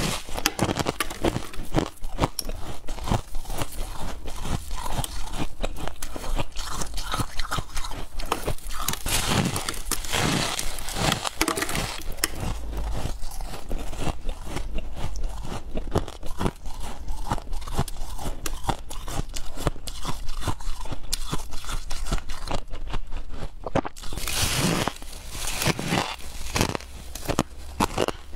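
Chunks of freezer frost being bitten and chewed close to the microphone: a dense run of squeaky, crackling crunches that goes on almost without a break.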